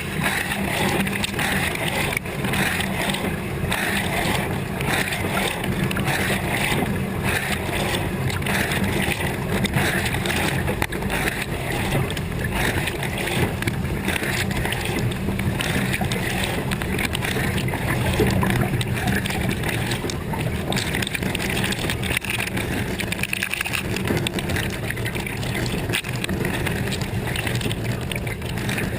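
Dishwasher running its wash cycle, heard from inside the tub: water from the spray arms sloshing and splashing against the camera's waterproof housing over the steady run of the circulation pump, a loud, unbroken churn.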